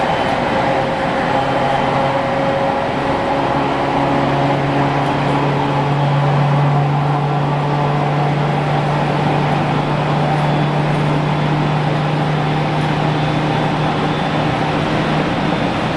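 JR Kyushu 815 series electric multiple unit running at steady speed, heard from inside the car: an even rumble of wheels on rail with a steady low hum from the electric drive.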